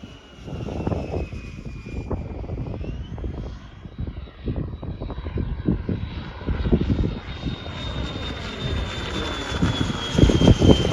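Electric ducted fan of a 120 mm EDF F-86 Sabre model jet whining in flight, its pitch falling, rising again and then sliding down as it passes. Gusty wind buffets the microphone underneath.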